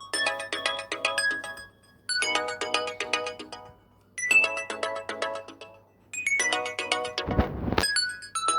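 Nokia Asha 205 ringtone: a short, quick melody of bright pitched notes that repeats about every two seconds with brief gaps between. A brief noisy rush cuts in near the end.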